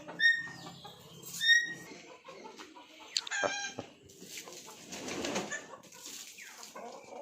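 Chickens calling: two loud, short squawks in the first two seconds, then a falling call and more clucking, with a rustle of movement.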